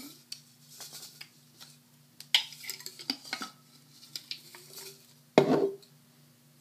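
Glass jar being handled: scattered clicks and clinks of glass and lid, with one loud knock about five seconds in.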